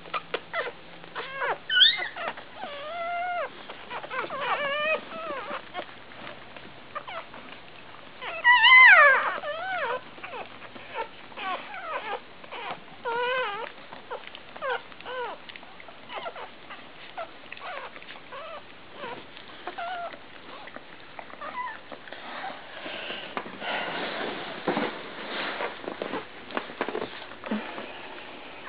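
One-day-old Labrador retriever puppies squeaking and whimpering in many short cries that rise and fall in pitch, loudest about nine seconds in. The cries thin out in the second half, where a soft scuffling noise with clicks comes in.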